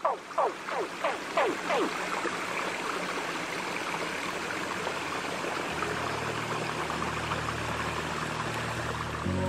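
Shallow creek flowing over rock ledges and stones: a steady rush of water. During the first two seconds a run of quick falling tones, about three a second, fades out, and low steady tones, the start of background music, come in about six seconds in.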